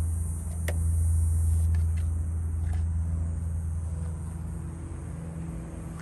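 Dodge Viper GTS ACR's 8.0-litre V10 idling with a steady low hum, getting somewhat quieter in the second half. One sharp click sounds about a second in.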